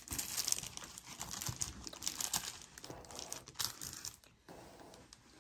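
Packaging crinkling and rustling as it is handled, in irregular uneven bursts.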